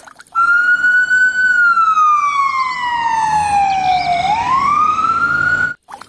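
Toy ambulance's electronic siren sounding one slow wail. The tone falls steadily for about three seconds, swoops back up, and cuts off suddenly near the end.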